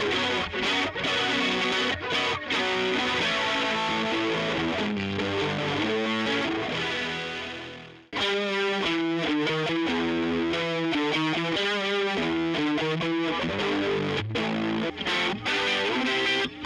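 Electric guitar copy of a Rickenbacker, played with a distorted tone through a 1978 Marshall 4140 amp. About eight seconds in the playing stops and dies away, then starts again with notes whose pitch wavers.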